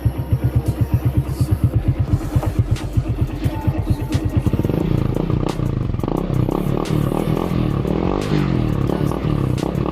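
Suzuki Raider J Pro motorcycle engine through an aftermarket Apido V3 exhaust canister, idling with an even pulsing beat, then revved from about four and a half seconds in, its pitch rising and falling with the throttle.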